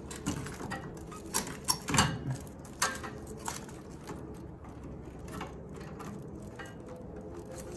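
Scattered sharp clicks and small rattles of wire connectors being pulled off their terminals inside a microwave oven, most of them in the first three and a half seconds, then only faint handling.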